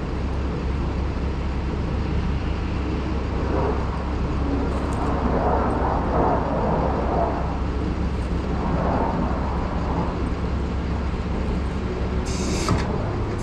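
A steady low mechanical hum, with rough handling and work noise in the middle and a few short sharp clicks near the end.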